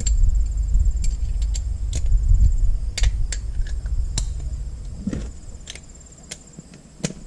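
Light metallic clicks and clinks of hand tools, a dozen or so at irregular intervals, over a low rumble that dies away about halfway through, with a steady thin high whine throughout.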